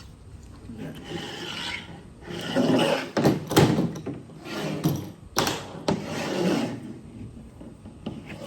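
Sharp knife scraping along the edge of a window screen frame, trimming off excess fiberglass screen in a series of irregular rasping strokes, with a few sharper louder strokes in the middle.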